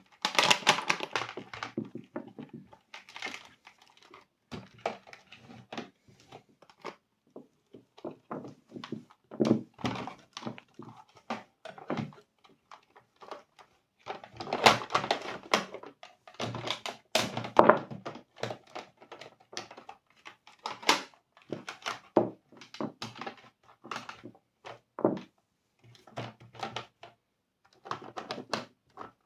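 Irregular clicks, knocks and rustling from hands handling cable and plastic intercom parts during wiring, busiest about halfway through.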